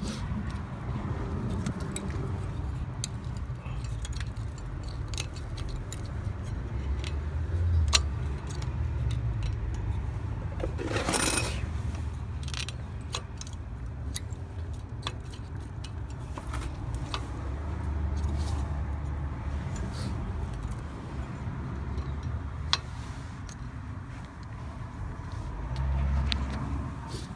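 Scattered light metallic clicks and clinks of front brake pads and caliper hardware being handled and removed, over a steady low rumble, with one longer scraping sound about eleven seconds in.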